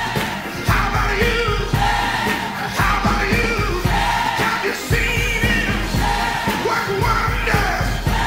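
Gospel mass choir singing over a disco rhythm section with bass and a steady dance beat.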